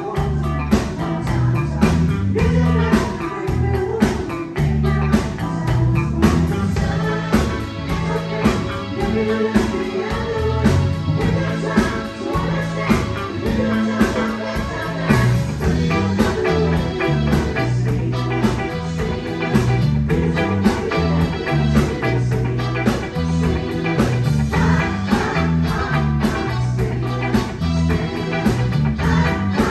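Live band playing a rock/blues tune: a bass line under electric guitar, with drums keeping a steady beat.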